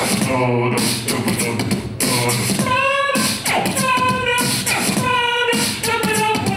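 Live beatboxing into a handheld microphone: rapid percussive mouth beats, with short pitched vocal notes woven in about once a second from about three seconds in.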